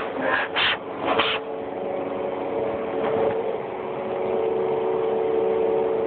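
Vacuum cleaner running with a steady motor whine and rushing suction through its raised hose wand, with a few brief surges of hiss in the first second and a half.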